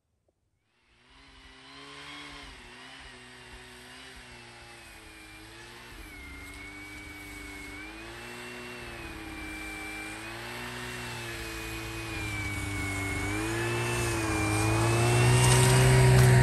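A motor vehicle's engine running, its pitch rising and falling with changing revs. It starts about a second in and grows steadily louder to the end.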